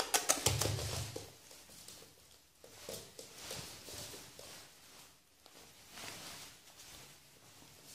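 Yorkshire terrier puppy scrabbling and playing on a wooden floor: soft scuffles and light taps of paws and a hand on the boards. A quick run of clicks comes in the first second.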